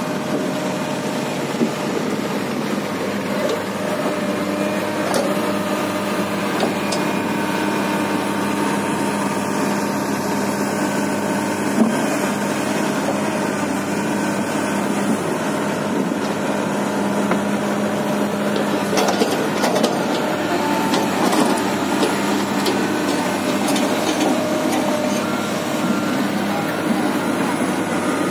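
Komatsu PC300-8 hydraulic excavator's six-cylinder diesel engine running steadily at working speed, with scattered short knocks and clanks from the tracks and bucket as it works the mud.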